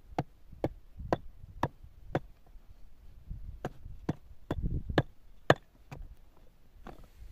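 Repeated sharp strikes of a tool on a hard material, about two a second, pausing briefly about two seconds in before going on irregularly.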